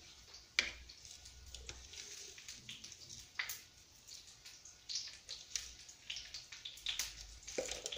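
Faint, scattered clicks and light taps from small kitchen containers and lids being handled and set down on a stone countertop.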